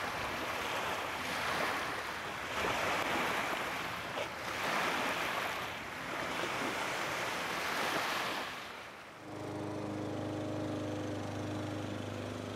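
Surf washing onto a beach, the rush of water swelling and falling about every two seconds. About nine seconds in it cuts to a steady low hum.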